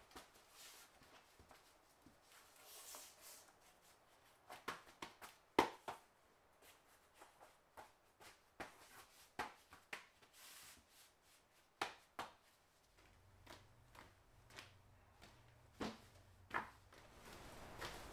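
Interlocking floor mat tiles being laid and pressed together on a concrete floor: soft, irregular taps and knocks at uneven intervals. A faint low hum comes in about two-thirds of the way through.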